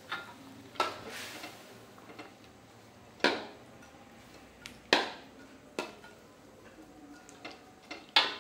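A cooking utensil knocking against a pan while stirring chicken feet simmering in sauce: about six separate sharp clinks with a short ring, the loudest about three and five seconds in and near the end.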